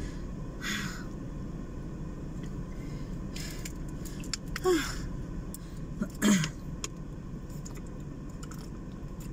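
Steady low car-cabin hum with a few breathy exhalations and two short falling sighs from a woman struggling to breathe during an asthma attack.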